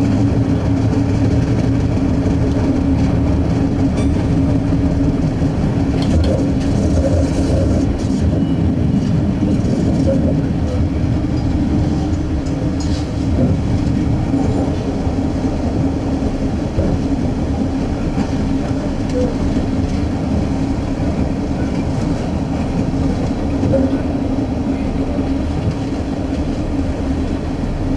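Diesel suburban railcar running along the line, heard from inside the leading car: a steady low engine and wheel drone with a few faint clicks from the wheels.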